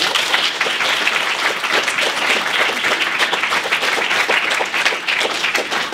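Audience applauding: many hands clapping together in a steady, dense round of applause.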